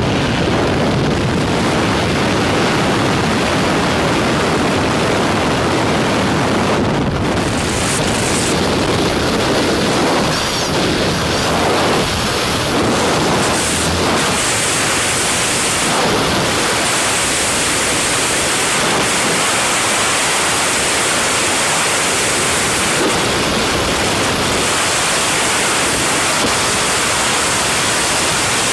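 Loud, steady rush of freefall wind buffeting a skydiver's camera microphone during a tandem skydive.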